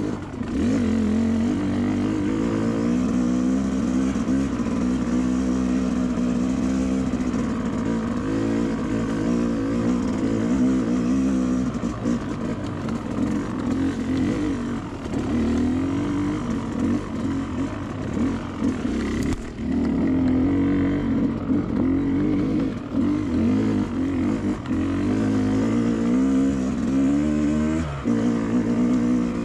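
Two-stroke dirt bike engine being ridden, its note rising and falling with the throttle and dropping off briefly about two-thirds through.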